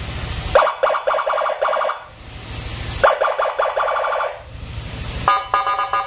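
Aftermarket police-escort (patwal) siren on a Yamaha NMAX scooter, sounded from the handlebar switch in its rough-tone mode: three bursts of about a second and a half, each a rapidly pulsing electronic blare, with a low rumble in the gaps between them.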